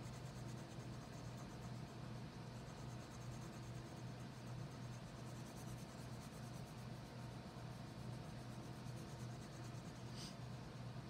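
Red wax crayon scribbling on paper in quick back-and-forth strokes, faint, over a steady low hum. A brief high-pitched sound comes near the end.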